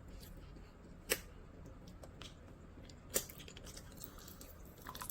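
Quiet room with two brief sharp clicks, about a second in and about three seconds in, from small objects being handled.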